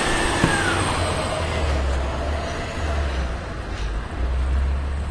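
1996 Volvo WX64 garbage truck's diesel engine idling with a steady low rumble.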